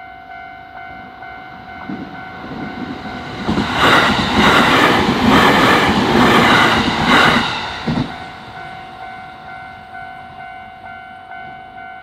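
Japanese level-crossing warning bell ringing its fast electronic clang while an electric commuter train passes through. Between about three and a half and eight seconds in, the train's run over the rails is loud, with a rhythmic clatter of wheels over the rail joints. The bell keeps ringing after the train has gone and stops near the end.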